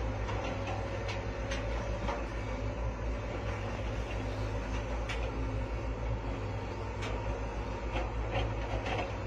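Excavator diesel engine running steadily close by, a low even drone, with a few short sharp knocks scattered through it.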